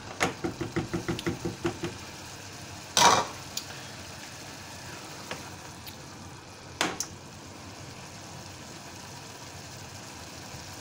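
A silicone spatula stirring vegetables in a stainless steel saucepan: quick knocking strokes, about six a second, for the first two seconds. Two single loud knocks follow, about three and seven seconds in. Under it, vegetables sizzle faintly as they sweat in butter.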